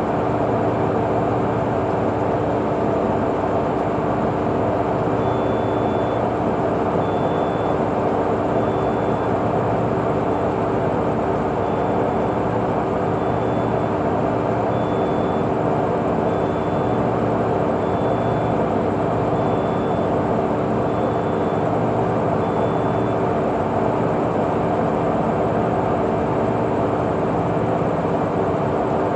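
WAP1 electric locomotive standing energised and idling, giving a steady, even hum and whir. A short high beep repeats about every second and a half, starting a few seconds in and stopping some seconds before the end.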